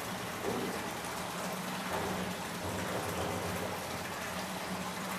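Water trickling and pattering steadily in a flooded cave passage, with a faint low hum underneath.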